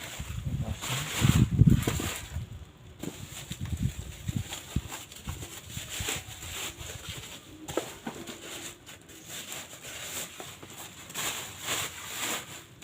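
Handling noise from unpacking a parcel: low thumps, loudest about a second and a half in, then a few separate knocks and scattered light taps.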